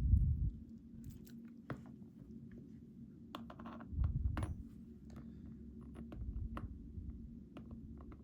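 Scattered small clicks and taps of tiny lock pins and tools being handled on a work surface, with three low thumps of handling.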